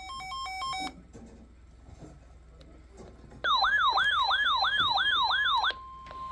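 Emergency alert tones from an alert receiver. It opens with a short run of stepped electronic beeps. After a pause comes a fast warbling, siren-like alert tone for about two seconds, and near the end a single steady alarm tone starts, the attention signal that comes before a National Weather Service severe thunderstorm warning.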